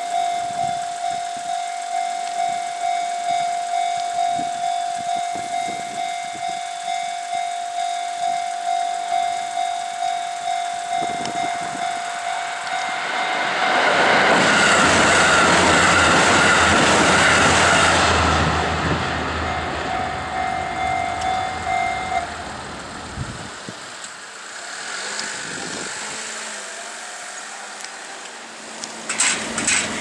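Japanese level-crossing electronic warning bell ringing in a steady repeating rhythm while a five-car KiHa 85 diesel express train passes. The train's rush and rumble builds about thirteen seconds in and is the loudest sound for several seconds. The bell stops shortly after the train has gone by.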